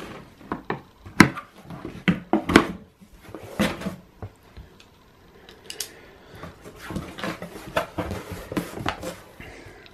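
Cardboard box being opened by hand: cut packing tape and cardboard flaps pulled apart and folded back. It makes a run of sharp scrapes, knocks and rustles, busiest at first, quieter for a couple of seconds midway, then picking up again.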